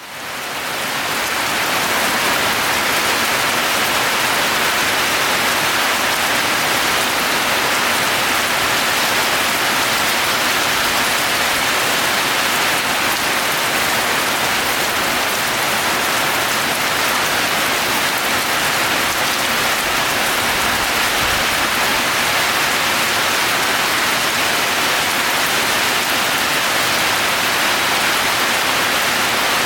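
Steady, heavy rain falling on a roof, a dense even patter that fades in over the first second or two.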